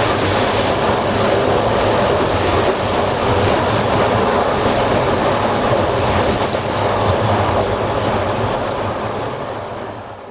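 Passenger train running along the line, a steady rumble of wheels on the rails heard from inside the rear of the last coach. The sound fades away in the last second or so.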